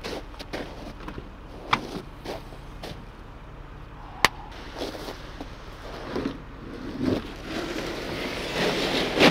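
Footsteps crunching on snow and sharp clicks and knocks as an SUV's rear hatch is opened, then a loaded plastic sled scraping as it is dragged out of the cargo area near the end.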